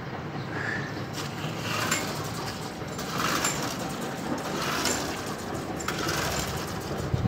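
Rattling mechanical sound from a walk-behind lawn mower, surging about every second and a half over a steady low hum.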